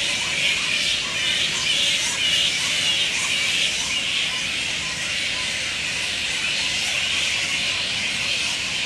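A colony of mostly grey-headed flying foxes squabbling at the roost: many overlapping shrill squeals and chatters blending into a continuous din.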